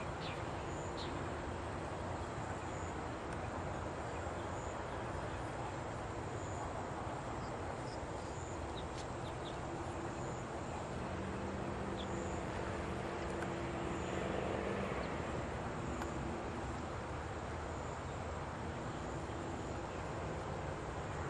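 Steady outdoor background noise with a distant engine drone that swells for a few seconds around the middle, and a few faint high chirps.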